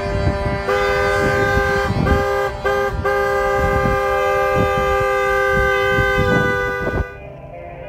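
Several vehicle horns honking together in a long, steady chord of different pitches, dipping briefly about two and a half seconds in and cutting off abruptly near the end.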